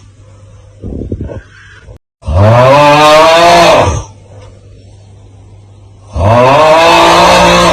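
The 'Aauuggh' TikTok meme sound effect on repeat: a loud drawn-out human cry of 'aauuggh' that rises then falls in pitch, heard twice about four seconds apart, with a short faint sound about a second in.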